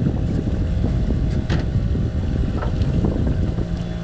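Wind buffeting the microphone on an open boat at sea, a gusty low rumble, with a sharp tap about one and a half seconds in.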